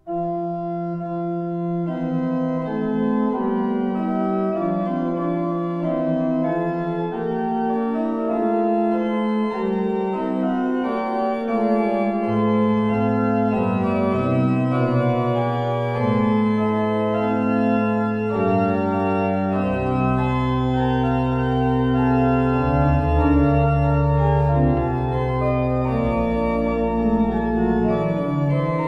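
Späth-built positive pipe organ playing sustained chords in a moderate tempo, the chords changing every second or so. The pedal comes in with low bass notes about twelve seconds in and goes deeper around twenty seconds.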